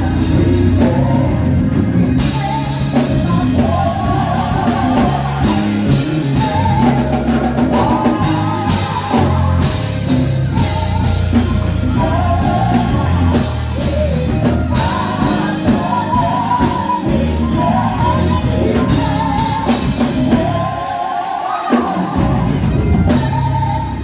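Gospel music performed with singing over a band with drums and bass. The bass and drums drop out for about a second near the end.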